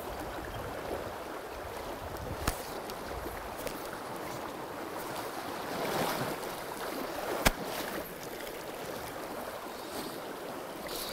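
Small river running steadily over rocks, a constant rushing hiss, with two short sharp clicks about five seconds apart.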